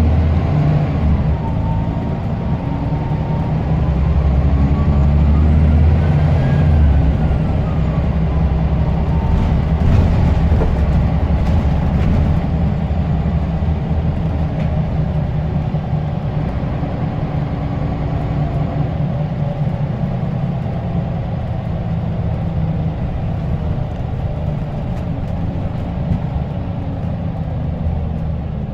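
Scania L94UB single-deck bus's diesel engine running under way, a steady low rumble with its turbocharger whistle gliding up and then back down, peaking about six to seven seconds in. A few brief rattles come around ten to twelve seconds in.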